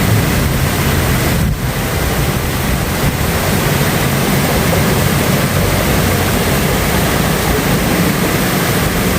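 Waterfall's falling water rushing in a loud, steady roar of noise, briefly dipping once about a second and a half in.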